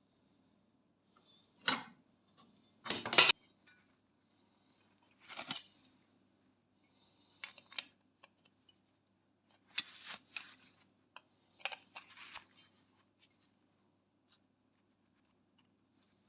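Small metal parts and tools being handled on a workbench: a series of separate clinks, clicks and clatters, the loudest about three seconds in, over a faint steady hum.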